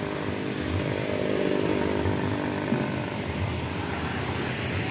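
Small motorcycle engine running close by over street traffic noise; its note is strongest in the first half and fades after about three seconds.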